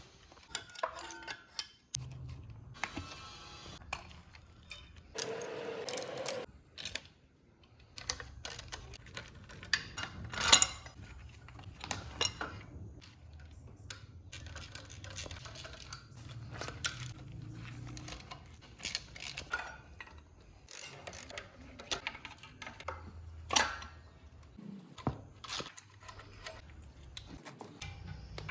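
Metal hand tools and engine parts clicking and clinking as they are handled, over a low steady hum. The sound drops out abruptly a few times.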